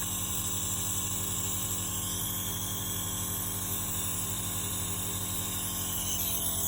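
Compressor nebulizer running, a steady motor hum with a hiss of air, misting saline.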